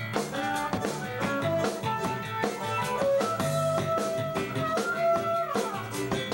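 A live band playing jazz-fusion: an electric guitar plays a melody of held notes over bass and a Pearl drum kit. The lead line slides down in pitch about five and a half seconds in.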